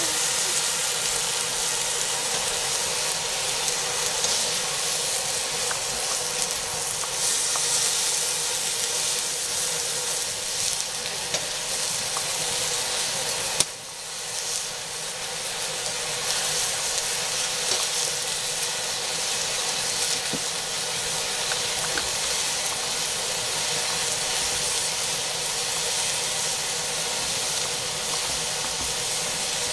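Leafy greens sizzling as they fry in a black iron wok over a wood fire, stirred with a wooden stick. A sharp click about fourteen seconds in, then a brief dip in the sizzle.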